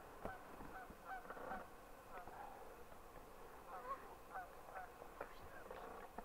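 Faint honking of geese, many short calls a few times a second, with a few light clicks among them.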